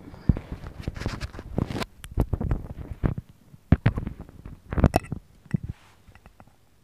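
Cloth rustling and several dull knocks close to the microphone as a person in a long robe gets up and moves past it. The knocks are sharpest about a third of a second in, near four seconds and near five seconds, then the sound dies away.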